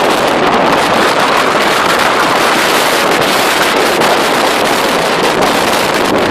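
Steady, loud rushing noise of storm wind blowing across the microphone, mixed with the rush of the swollen river.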